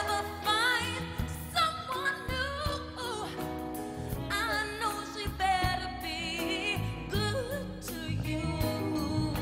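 A woman singing a soul ballad live with a band, her voice sliding through quick runs and vibrato over keyboards and bass.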